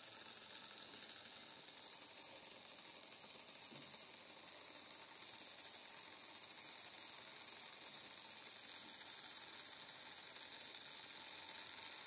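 Steady high-pitched hiss of background noise, even throughout, with no distinct motor or gear sound standing out.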